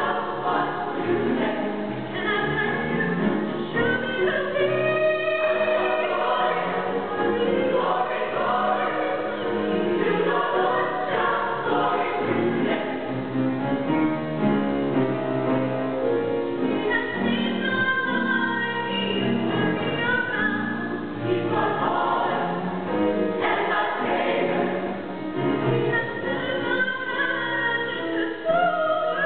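Mixed choir singing an upbeat gospel song.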